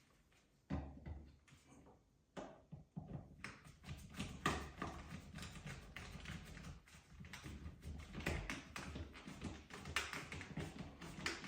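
Light clicking and tapping of a plastic wall trim plate and its screws being handled and fitted over an outlet. The clicks become dense and irregular a few seconds in.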